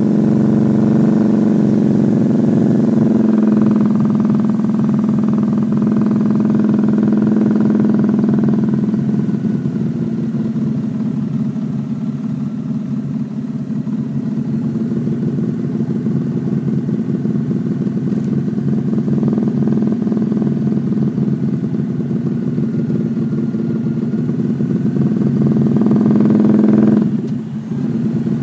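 Honda Shadow V-twin motorcycle engine running under way, steady for the first several seconds and then easing off a little. Near the end the engine note builds, drops suddenly about a second before the end, and picks up again.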